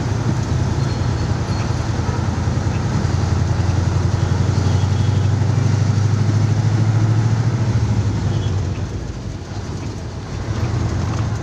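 Heavy truck's diesel engine running under way, heard from inside the cab as a steady low drone with road noise. It swells a little in the middle and dips briefly about nine seconds in.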